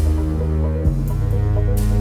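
Background music with deep, sustained bass notes that change pitch about a second in, and a short swishing swell near the end.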